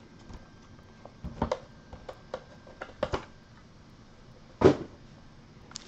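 Light taps and knocks from a cardboard trading-card box and foil card packs being handled and set on a wooden table, with one louder knock about two-thirds of the way through.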